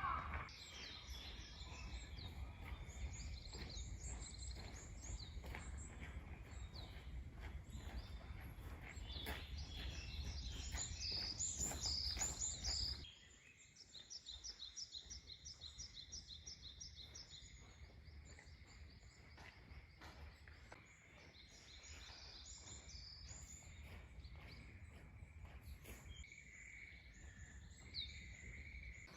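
Small birds chirping and twittering in repeated short calls over a low outdoor rumble with soft rustling knocks; the rumble and knocks drop away suddenly about 13 seconds in, leaving the birdsong over a quieter background.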